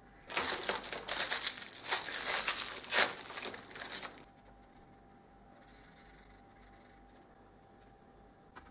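Thin clear plastic sleeve crinkling and tearing as a marker pen is unwrapped from its packaging, a rapid crackle lasting about four seconds that then stops.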